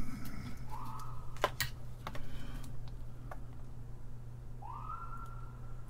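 Light clicks and taps of a printed circuit board and soldering tools being handled on a workbench, over a steady low hum. Twice a faint tone rises and then holds briefly, once about a second in and again near the end.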